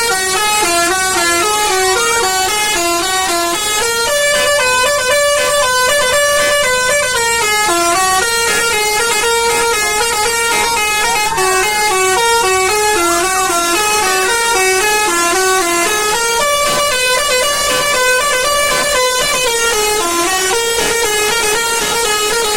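A bus's Basuri multi-tone 'telolet' horn playing a long melody, a quick unbroken run of stepped notes.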